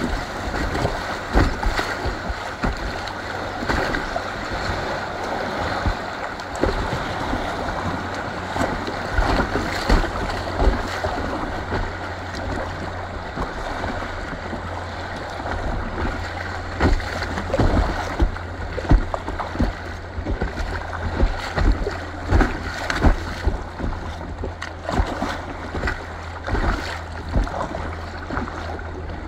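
Fast river water rushing through rapids and slapping and splashing against the hull of an inflatable kayak, with many short splashes over a steady low rumble. The water gets a little quieter toward the end as the river smooths out.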